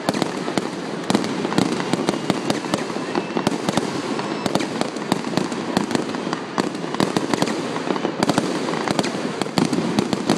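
Aerial fireworks display: a rapid, unbroken string of shell bursts and bangs, several a second, over a continuous noisy rumble.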